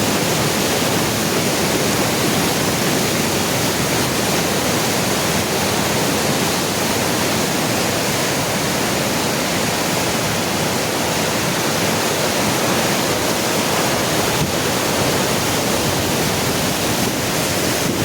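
Floodwater in a swollen river rushing fast, a loud, steady, unbroken rush of water.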